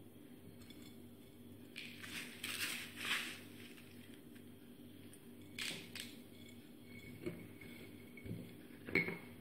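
Hands scooping spice-coated lemon pieces on a steel plate and packing them into a glass jar: a few soft scrapes and rustles, loudest two to three seconds in, over a faint steady hum.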